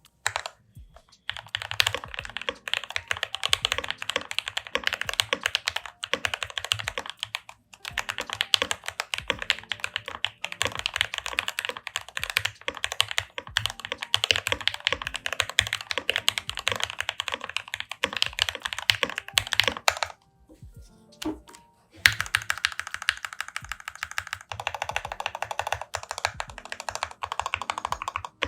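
Fast typing on an NK87 aluminium tenkeyless mechanical keyboard with lubed Everglide Aquaking linear switches and GMK keycaps: a dense run of "creamy" keystrokes. Brief pauses come about 8 s in, and a longer one of about two seconds around 20 s in.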